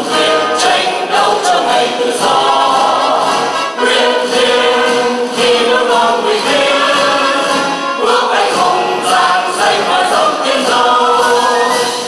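A choir singing a song together, the lead voice carried through a handheld microphone.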